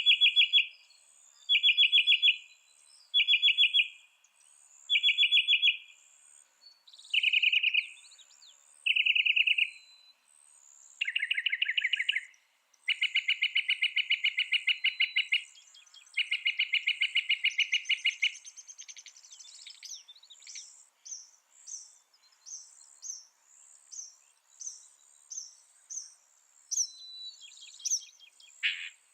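Mockingbird singing: a buzzy, rapidly pulsed phrase repeated about seven times, then two longer runs of the same trill, then switching to quick, high chirps for the last third.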